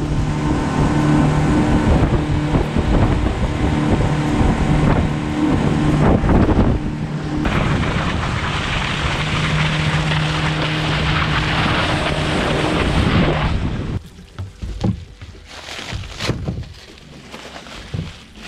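Yamaha outboard engine driving a boat at speed, a steady hum under wind buffeting the microphone, with the wind and spray hiss growing louder about halfway through. About fourteen seconds in it gives way abruptly to much quieter rustling and knocks of a plastic bag being handled on deck.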